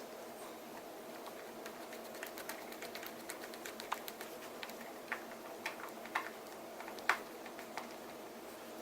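Light, irregular clicking and ticking of small tools and parts on a Samsung Galaxy S3 being worked on by hand, with a sharper click about seven seconds in, over a steady faint hum.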